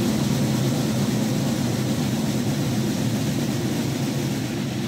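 Steady, unbroken drum roll by a corps of ceremonial drummers, filling a pause in a herald's proclamation.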